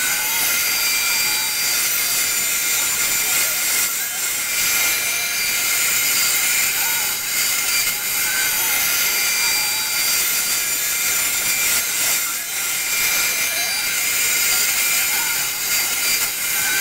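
CNC router spindle running at speed with a steady high whine over a hiss as a quarter-inch upcut bit cuts the outside profile of a wooden guitar body.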